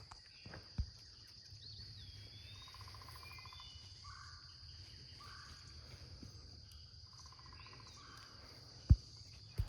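A steady, high-pitched insect drone with a few short bird calls over it, and a single sharp thump near the end.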